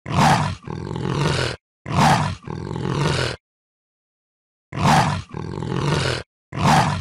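A big cat's growling roar: four calls in two pairs, each opening with a loud burst and running on in a lower, steadier tail, with clean silences between them.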